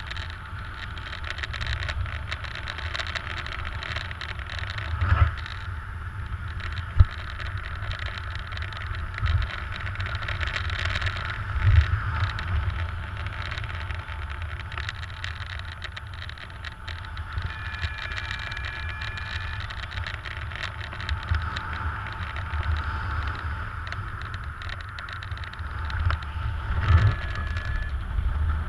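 Wind rushing over the microphone in paraglider flight: a steady low rumble that swells with gusts, with a few sharp buffets.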